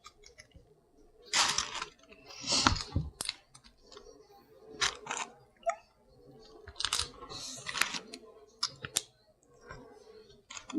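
Close-up eating sounds of Maryland crab being picked apart and eaten: irregular cracks, clicks and wet mouth noises.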